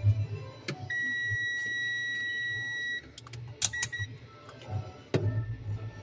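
Digital multimeter's continuity buzzer beeping as test probes are put on a fridge temperature sensor's connector: one steady high beep of about two seconds starting about a second in, then a short beep, among a few sharp clicks of the probes and connector being handled.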